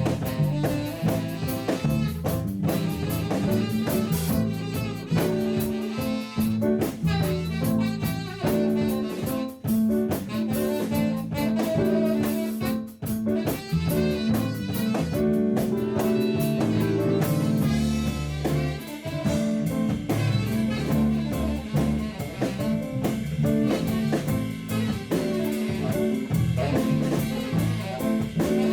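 Tenor saxophone honking low notes in a jazz-blues style over a band with drums, with long held notes in the second half.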